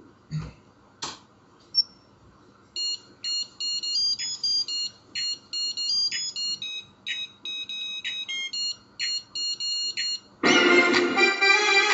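A quick rhythmic pattern of short, high electronic bleeps. About ten and a half seconds in, a much louder electro dance track with a full beat starts.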